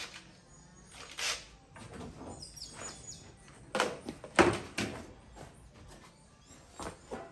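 Scattered knocks and clunks of hand work on a bare metal car body shell, the loudest about four and a half seconds in, with a few short high chirps between them.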